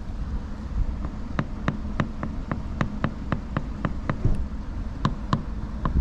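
A phone's edge rubbed back and forth over a vinyl decal on car window glass to smooth it down, making a run of short, even clicks about three a second, starting about a second in.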